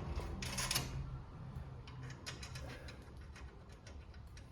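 Scattered sharp clicks and ticks of hand tools on metal during work on the front suspension, with a short hiss about half a second in.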